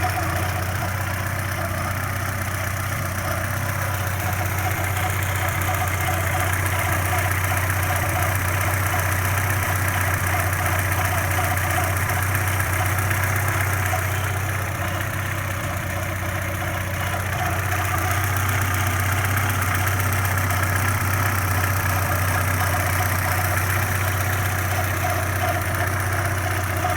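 Audi 80 B3 engine idling steadily, with a slight squeak coming from the engine.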